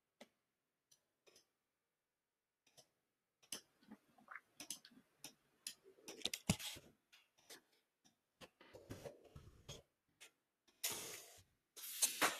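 Computer keyboard typing: irregular key clicks, sparse at first, then a quicker run of keystrokes near the end.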